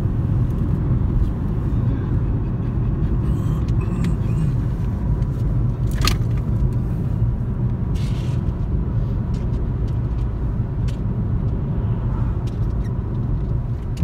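Steady low rumble of a car driving, heard from inside the cabin. A single sharp click comes about six seconds in.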